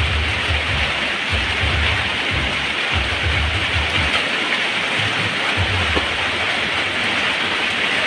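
Steady rain falling as an even hiss, with irregular low rumbles that come and go.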